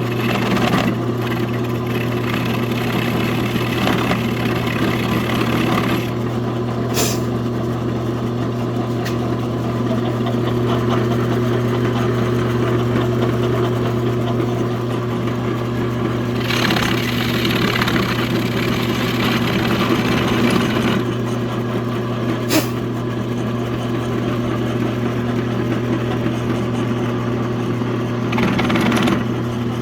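Machine tool's motor running steadily with an end mill cutting a flat spot, the cutting noise swelling in three passes. There are two sharp clicks.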